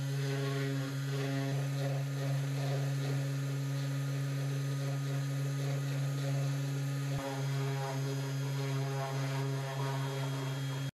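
Small handheld rotary carving tool running with a steady hum while its bit grinds away at a small piece of wood.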